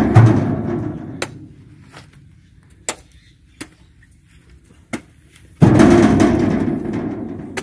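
Two heavy thuds about five and a half seconds apart as oil palm fruit bunches, heaved up by hand, land in a dump truck's bed, each dying away over about two seconds. A few sharp clicks come in between.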